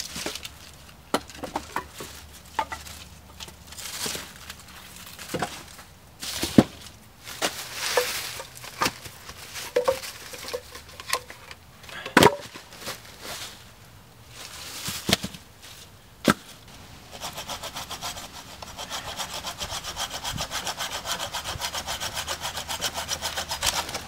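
Dry wooden sticks knocking and clattering as they are handled and tossed onto a pile. Then, from about two-thirds of the way in, a hand saw cuts through wood with quick, even strokes.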